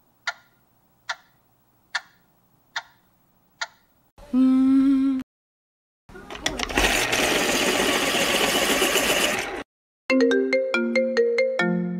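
A run of alarm sounds one after another: a clock ticking slowly, a short buzzing tone of about a second, a loud harsh ringing of about three and a half seconds, then a melodic phone-style ringtone of quick plucked notes near the end.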